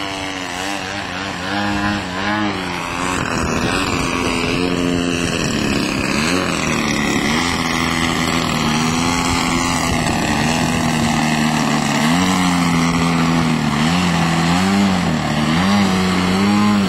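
DLE-55 single-cylinder two-stroke gas engine with stock muffler, spinning a Vess 23A propeller on a giant-scale RC aerobatic biplane in flight. The engine runs steadily, its pitch dipping and rising again and again as the throttle is worked to hold hovers and pass low. It grows louder as the plane comes closer.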